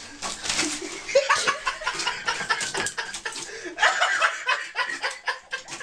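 A person laughing, over many quick clicks and scrapes.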